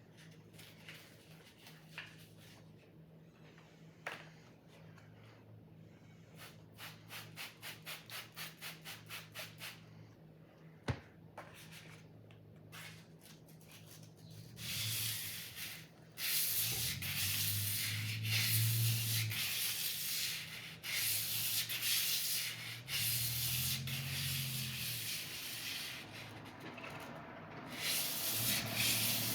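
A sword blade being sharpened: a quick run of even rubbing strokes, about four a second, then from about halfway a louder, near-continuous rasping with short breaks.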